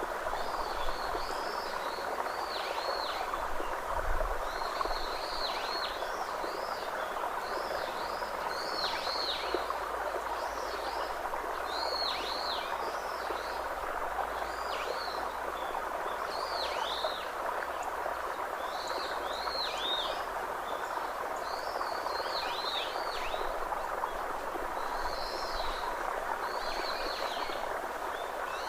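Birds chirping in short, high calls every second or so over a steady rush of flowing water.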